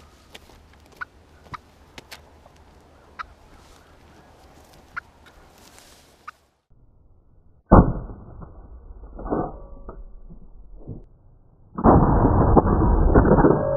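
Faint rustling with small clicks, then, after a brief gap, loud close-up sounds from a wild turkey: a sudden loud thump about eight seconds in, short clucking notes, and from about twelve seconds a loud sustained commotion.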